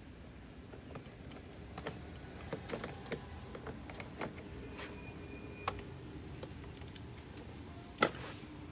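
Scattered light plastic clicks and taps as the door panel's wiring connectors are unlatched and unplugged, with one sharper click near the end.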